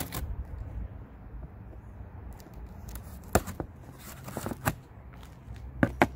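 Scissors cutting through packing tape along a cardboard box, with crackling of tape and cardboard and sharp snips and clicks. The clicks come singly about three seconds in, in a quick cluster a second later, and as two loud ones close together near the end.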